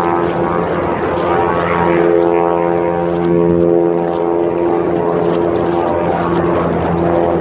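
Steady engine drone made of several held tones, over a rushing noise of wind and choppy water.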